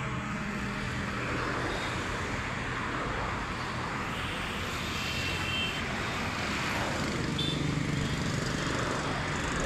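Road traffic on a highway: cars and motorcycles passing close by, with a steady rush of engine and tyre noise. Engine hum swells as a vehicle goes past near the end.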